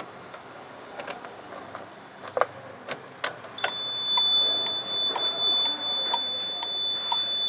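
Several sharp clicks, then about three and a half seconds in a vehicle security alarm's buzzer starts a steady high-pitched tone. Clicks tick about twice a second through the tone.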